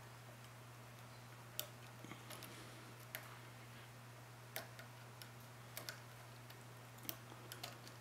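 Faint, irregular metallic clicks and ticks of a steel pick working the pin stack of a Rav Bariach pin-tumbler padlock under a tension wrench, single-pin picking, over a steady low hum.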